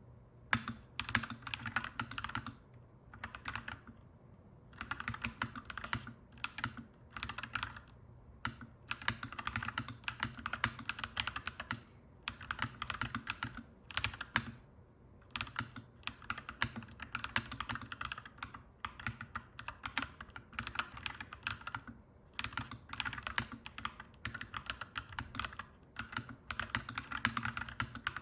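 Mechanical keyboard being typed on: bursts of rapid, clacky keystrokes broken by short pauses of about a second. A steady low hum runs underneath.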